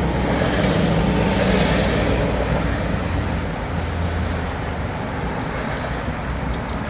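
Steady low vehicle rumble with a broad hiss over it, swelling slightly over the first couple of seconds and then easing.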